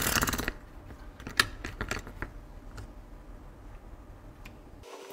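Hands handling a smartphone logic board. A short rattling clatter as the board is taken off a round plastic board holder, then a few light clicks and taps as it is set down on a work mat, over a low steady hum that cuts off abruptly near the end.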